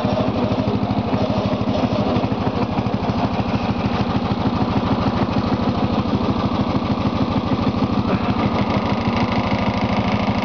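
Lawn tractor engine running steadily at an even speed while the tractor pushes a homemade plow.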